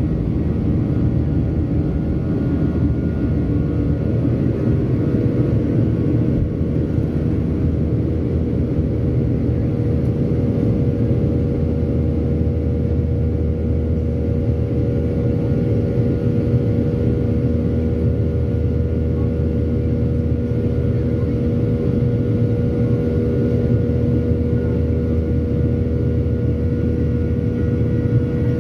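Boeing 737-800's CFM56-7B turbofan engines at takeoff thrust, heard inside the cabin over the wing: a loud, steady rumble through the takeoff roll, liftoff and initial climb. A steady hum joins the rumble about five seconds in.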